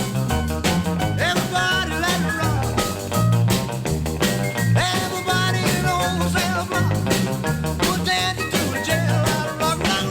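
Upbeat rock and roll music with a steady beat, a walking bass line and a melody on top.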